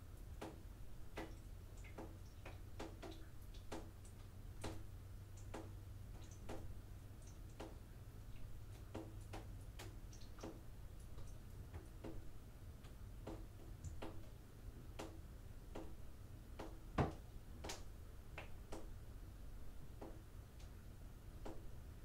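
Irregular sharp ticks from a fiberglass shower tub, about one or two a second with one louder tick about three-quarters of the way through, over a low steady hum. No spray is running.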